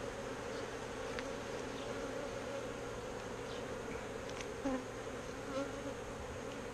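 Many honeybees buzzing in a steady, even hum around a beehive, the colony agitated and defensive. A couple of brief higher notes come about halfway through, as single bees pass close.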